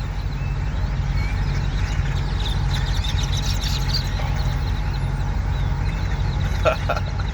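Steady low drone of an idling truck, with scattered short bird calls from a flock over it.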